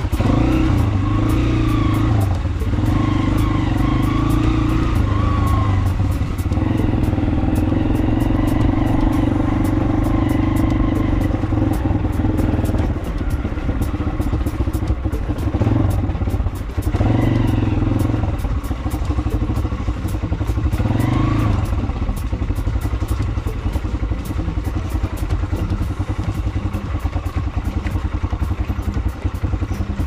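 Small motorcycle engine running under light throttle while riding down a rough, rocky dirt track, the engine note dropping away and picking up again several times. Clattering and rattling from the bike jolting over loose stones.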